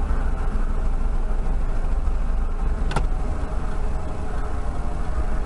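Steady low rumble of a car's engine and road noise as heard inside the cabin by a dashcam, with a single sharp click about three seconds in.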